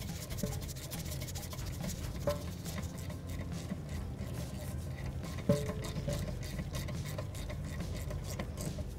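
Hand ratchet with a 14 mm socket clicking in quick, uneven runs as it tightens a sway bar link bracket bolt, with a few light metallic clinks of the tool against the bracket.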